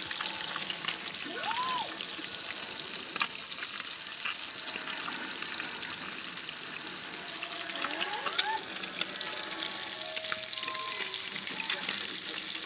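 Tilapia frying in hot oil: a steady sizzle with scattered crackles and pops.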